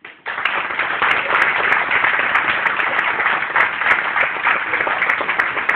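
A small group of people applauding, the claps loud and close by, starting at once and keeping up steadily.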